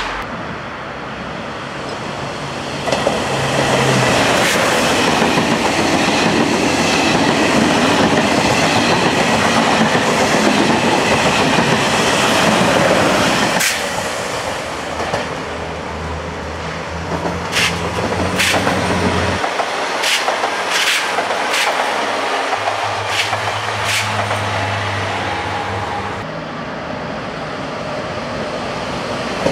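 Renfe AVE high-speed train running past on the tracks: steady rolling noise with a series of sharp clicks from the wheels over rail joints. Near the end a second high-speed train, a TGV Duplex, comes in and the noise grows.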